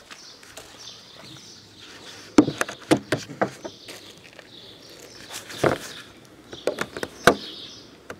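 Three quick clusters of sharp clicks and knocks, about two and a half, five and a half, and seven seconds in, over a faint high chirping that repeats about once a second.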